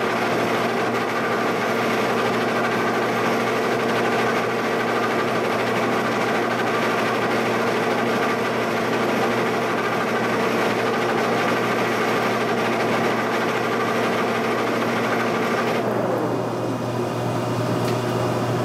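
Giddings & Lewis mill running under power feed: a steady mechanical hum with several held tones. About sixteen seconds in, the louder part of the noise drops away and one tone falls in pitch as the feed stops, leaving a lower steady hum.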